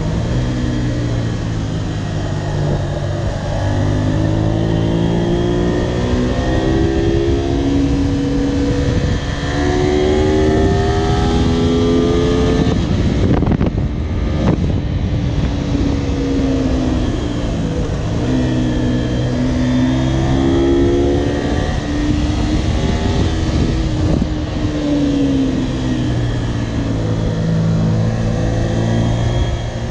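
Honda VTR250's 90-degree V-twin engine heard on board, accelerating through the gears: the revs climb and drop back at each upshift several times. About halfway through the engine note briefly fades into a rushing noise as the throttle closes, then it pulls up through the gears again.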